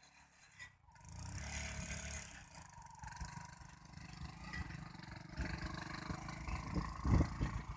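Motorcycle engine of a bike converted into a mini tractor, running under load as it pulls a tined cultivator through the soil between crop rows, with clattering from the rig. The sound comes up about a second in, and there is a louder burst of knocks near the end.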